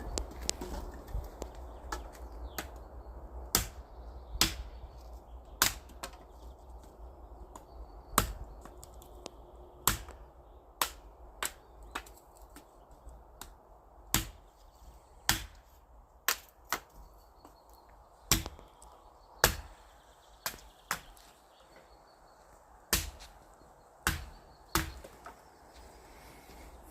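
Firewood being chopped: a long, uneven series of sharp wooden knocks, about one a second, some much louder than others.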